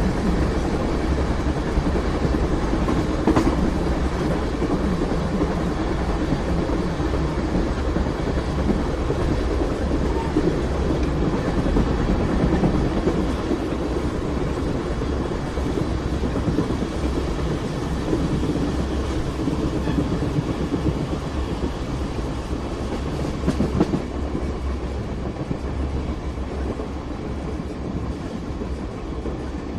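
Train running on the rails: a steady rumble of wheels and cars, with a sharp click about three seconds in and another near the end, easing slightly quieter over the last few seconds.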